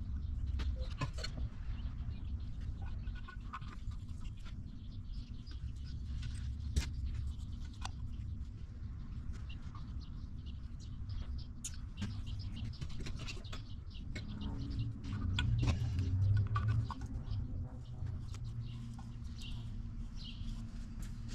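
Scattered light metallic clicks and taps as cam followers are fitted by hand into a Detroit Diesel 2-53 cylinder head, over a steady low hum.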